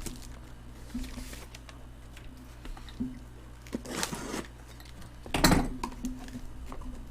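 Cardboard shipping box being handled: scattered light knocks and rustles, with a louder rustling swish about five and a half seconds in.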